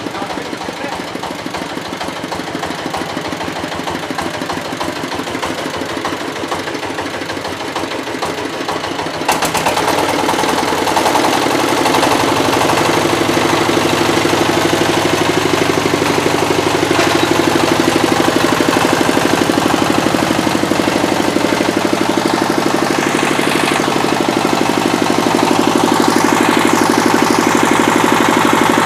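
Hydraulic press power unit running with a steady mechanical drone. About nine seconds in it turns suddenly louder and fuller and stays so.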